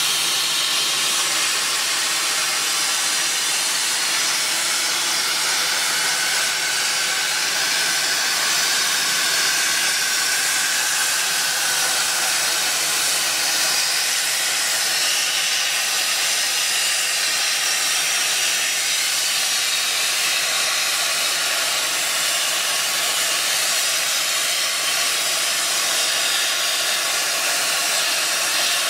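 CNC gantry plasma cutting machine's single plasma torch cutting steel plate: the arc and its gas jet make a steady, high hiss without a break.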